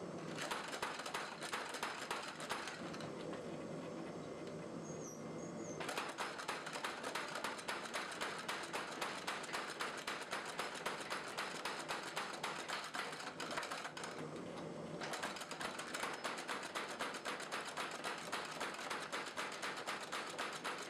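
Homemade wooden beam power hammer running, its head striking in a rapid, even series of blows. Twice the blows stop for a few seconds and only a steady motor hum remains, then they start again.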